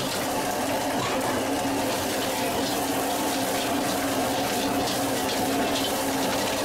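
Stir-frying in a wok over a gas burner: a steady rush of flame and sizzling under the roast duck and scallions, with light scrapes of the ladle against the wok.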